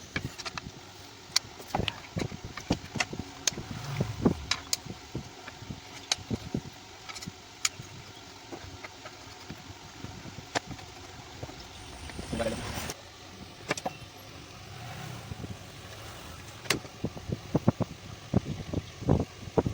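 Irregular sharp clicks and knocks of ceiling fan parts and tools being handled during a repair, with a brief scraping rustle about twelve seconds in.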